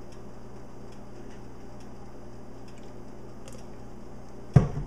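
Steady low kitchen hum with faint, irregular light ticks, and a single sharp knock near the end.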